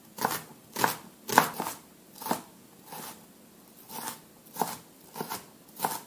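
Chinese cleaver chopping an onion on a plastic cutting board: about ten sharp knocks of the blade, unevenly spaced.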